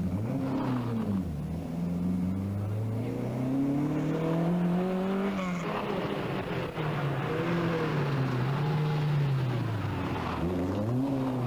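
Rally car engine revving hard on a stage, its pitch climbing and dropping several times as the driver changes gear and lifts for corners.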